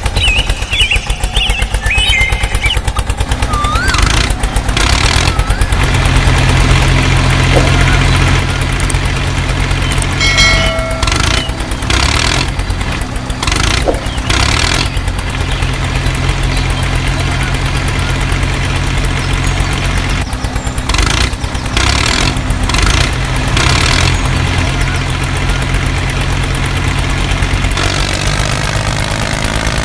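Tractor engine running with a steady, rapid chugging idle, dubbed over the toy tractor; a few short high chirps sound near the start.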